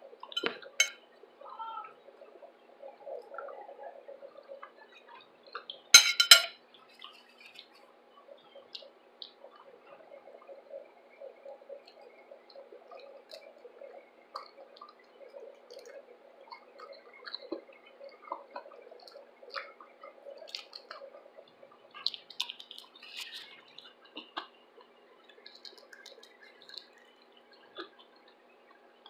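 Close-up eating sounds of fried shrimp being chewed: small wet clicks, smacks and crunches, with two sharp, loud cracks about six seconds in.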